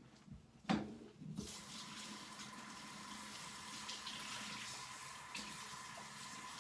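A single knock, then water starts running steadily about a second and a half in, with a thin steady tone over it: a handheld shower sprayer running water over a dog in a portable dog bathtub.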